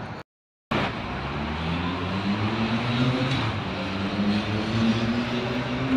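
Engine of a road vehicle in street traffic running and slowly gaining pitch as it accelerates, over a steady hum of traffic. It starts after a half-second gap of silence.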